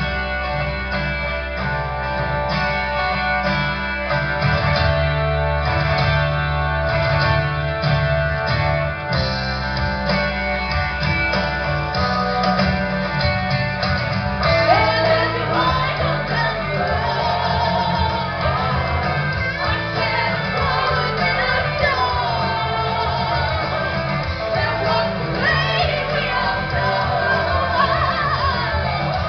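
Rock music with guitar, continuous and loud; a singing voice comes in about halfway through.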